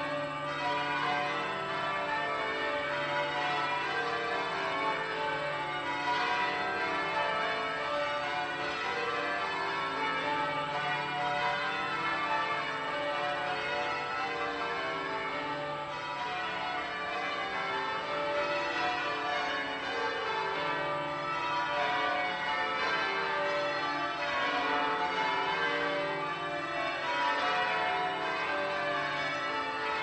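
Washington National Cathedral's tower bells ringing without a break, many strokes overlapping into a dense wash of sustained tones.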